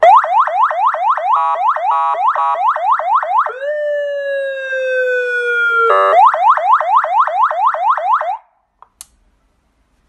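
A 200 W, 12 V electronic siren sounding through its horn loudspeaker while being switched between tones: fast rising whoops at about four to five a second, then one long tone sliding slowly down, then the fast whoops again after a short burst about six seconds in. The siren cuts off suddenly about eight seconds in, followed by a couple of faint switch clicks.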